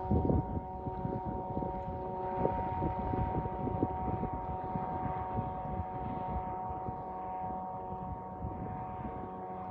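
Boat engine running with a steady hum of several tones, with wind on the microphone.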